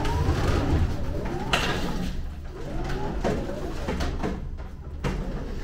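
Electric pallet jack manoeuvring a pallet: a steady low motor hum with a whine that rises and falls as it drives and steers, and a sharp knock about a second and a half in.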